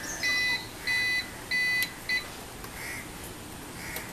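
APC Back-UPS RS 600's internal buzzer beeping: four short, steady, high electronic beeps about two-thirds of a second apart, the last one cut short about two seconds in.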